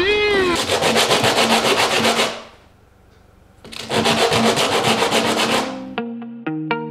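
Wooden block rubbed back and forth on coarse sandpaper by hand in rapid rasping strokes. It comes in two bouts with a short pause between. A few plucked music notes come in near the end.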